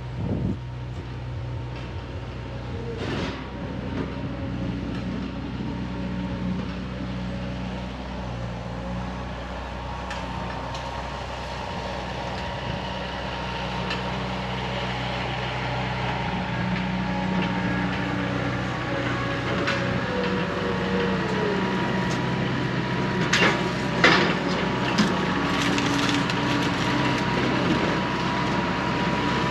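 Skid steer engine running steadily and slowly growing louder, with a thin steady whine above it and sharp clanks, once about three seconds in and several together a little past the middle.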